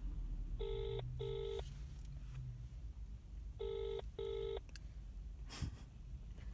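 UK telephone ringback tone played through a smartphone's speakerphone while the call is still unanswered: the double 'brr-brr' ring comes twice, about three seconds apart. A short knock sounds between the rings, over a low rumble.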